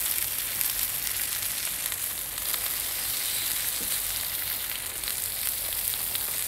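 Steak frying on the hot flat plate of a portable gas barbecue, a steady sizzle.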